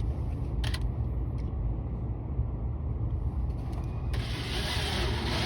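A screw being driven in to fasten a steel magnet catch plate to a wooden van cabinet: mechanical creaking and ratcheting over a steady low rumble. A harsher, hissing noise starts about four seconds in.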